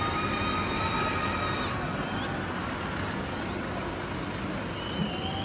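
Steady outdoor street noise from the road below: a low hum of vehicles, with faint long high tones over it.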